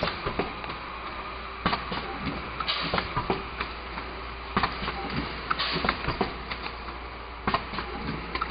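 DPP250D automatic blister packaging machine running: irregular mechanical clacks and knocks from its stations over a steady machine hum, with a short hissing burst about every three seconds.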